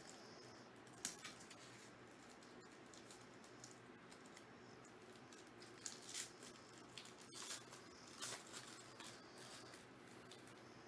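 Faint crinkling of a foil trading-card pack wrapper being handled and torn open, with a few short crackles about a second in and again around six and eight seconds.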